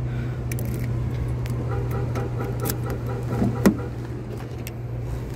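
A car door's latch clicks sharply as the Toyota sedan's driver door is opened, a little over three and a half seconds in. Under it are a steady low hum and smaller clicks and rustles.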